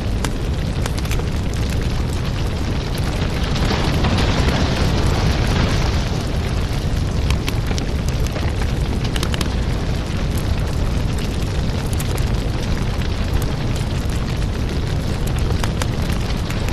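Wood fire burning with a steady low rumble and scattered sharp crackles and pops from the burning logs, swelling into a louder hiss about four to six seconds in.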